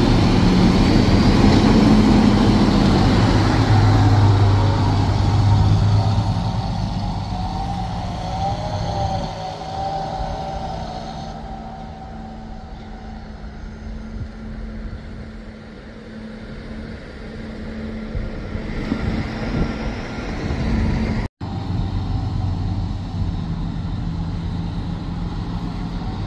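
Diesel tractor engines working a silage clamp. A Fendt 942 runs close by and is loudest in the first few seconds, then the sound fades to tractors driving on the clamp further off. A brief break comes about three-quarters of the way through, and the engines carry on after it.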